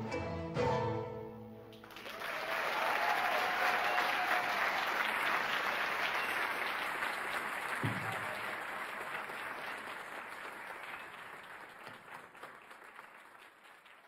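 The ensemble's final chord on strings and winds rings and stops, then the audience applauds, the clapping slowly dying away toward the end.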